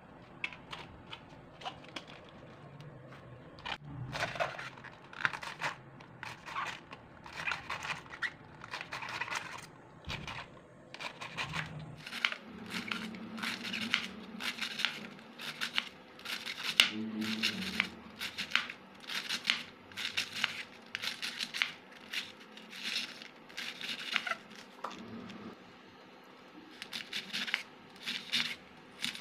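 Kitchen knife shredding a head of cabbage on a wooden cutting board: a run of crisp crunching slices, about two a second, starting a few seconds in and pausing twice.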